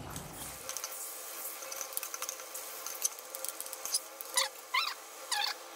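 Liquid poured into an aluminium pot of marinated fish pieces, then a metal spoon stirring and scraping the pot. Near the end the spoon squeaks four times against the metal, about half a second apart.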